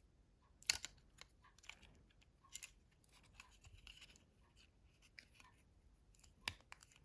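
Faint clicks and light scraping of small plastic and metal mobile-phone parts being handled, as a flex cable connector is seated on the board. The clearest clicks come just under a second in and about two and a half seconds in.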